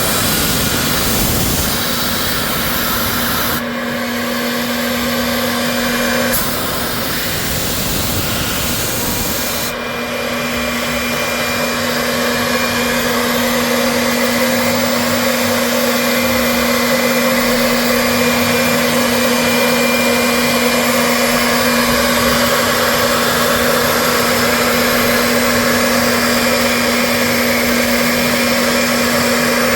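CNC milling spindle running steadily with a constant hum while a 2 mm ball end mill finish-cuts steel. The sound changes abruptly about 4, 6 and 10 seconds in, then holds steady.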